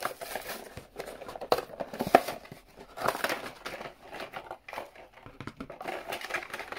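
A toy car blister pack being opened by hand: the stiff clear plastic blister crinkles and crackles in irregular snaps and rustles as it is pried and peeled away from the cardboard backing card.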